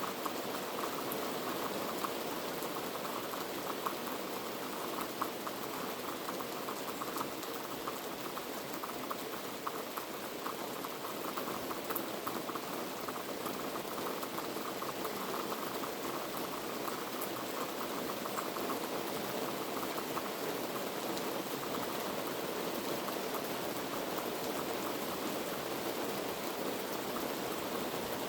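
Heavy rain falling steadily, a dense even patter of drops hitting a surface.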